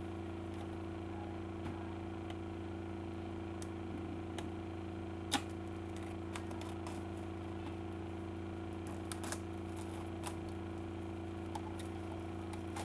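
Plastic wrap being peeled off a CD case: scattered faint crinkles and clicks, with a sharper click about five seconds in and a few more around nine seconds, over a steady low hum.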